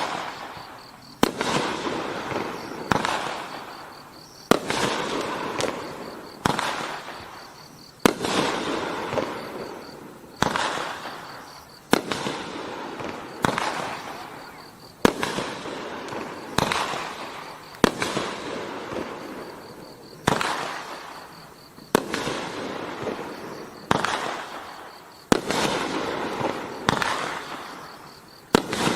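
A 500-gram consumer fireworks cake firing one shot after another, about seventeen in all, one every second and a half or two. Each sharp shot is followed by a fading crackling tail.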